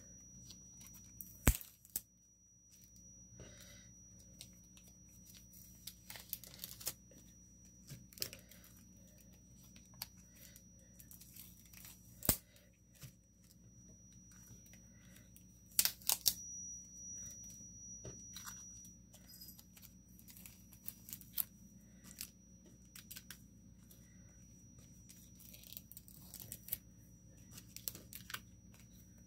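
Packaging being torn and crinkled by hand, in scattered short rustles with a few sharp knocks, the loudest about a second and a half in and again around twelve and sixteen seconds in.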